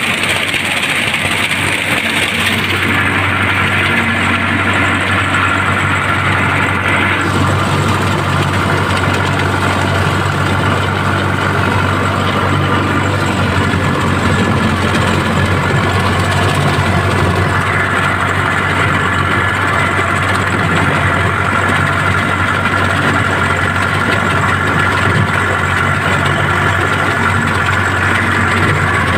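Sonalika tractor's diesel engine running steadily.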